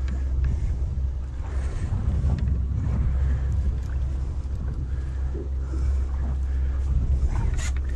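Boat engine running steadily at low revs, a constant low hum, with wind buffeting the microphone and water sloshing against the hull.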